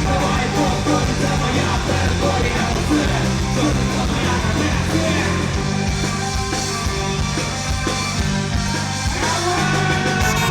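Loud live punk rock band playing, with heavy, steady bass.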